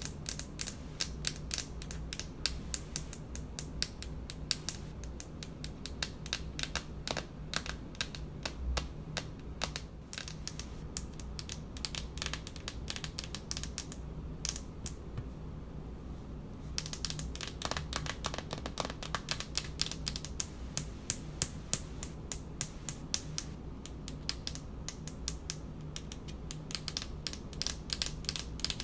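Long polished fingernails tapping rapidly on a speckled countertop, a dense run of sharp clicks that thins to a few taps for a couple of seconds about halfway through, then picks up again. A faint steady low hum runs underneath.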